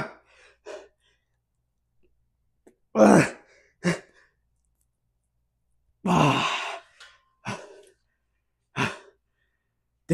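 A man's heavy exhalations and strained grunts from the effort of bodyweight wide-grip pull-ups, coming in separate bursts with silence between them; the longest, loudest one is about six seconds in.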